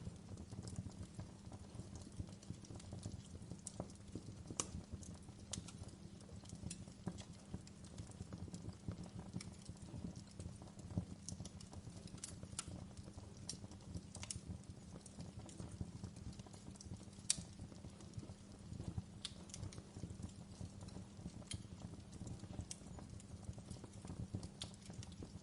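Wood fire crackling: a low steady rumble of burning with dense small crackles and a sharp pop every second or two, the loudest about two-thirds of the way in.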